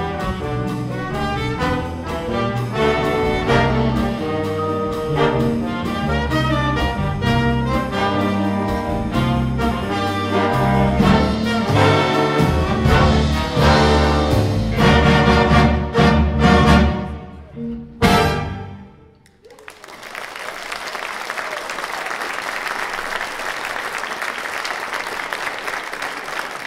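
Big band with brass, saxophones and rhythm section playing the closing bars of a jazz tune, ending on a few sharp final chords that ring out and fade. Audience applause starts about twenty seconds in and carries on steadily.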